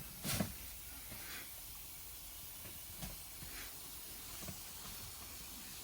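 A few faint clicks and knocks of polishing gear being handled, the sharpest just after the start, over a low steady hiss; no polisher is running.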